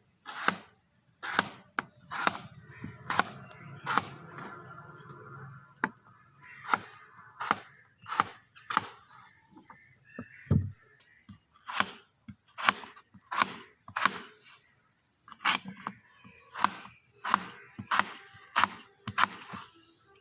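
Knife chopping potatoes on a wooden cutting board: sharp, irregular chops about one or two a second.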